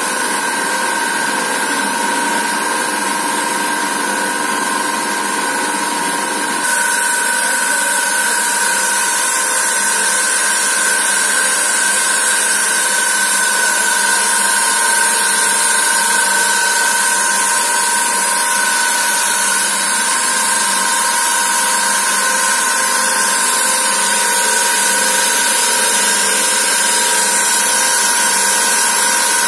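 Thread rolling machine running steadily as it rolls threads onto steel rod: a constant two-tone whine over a loud hiss, which gets louder about seven seconds in.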